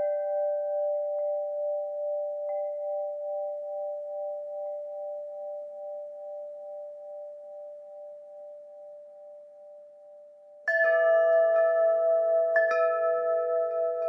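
Wind chimes ringing: a chord of a few notes slowly dies away with a gentle waver, then, about eleven seconds in, the chimes are struck again, a louder cluster of new notes, with another strike a couple of seconds later.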